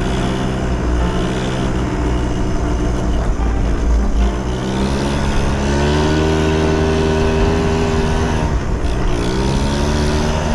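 Yamaha Jog scooter engine of a mini bike running under way. Its pitch climbs steadily from about four seconds in and drops back near nine seconds, over a low wind rumble on the handlebar camera's microphone.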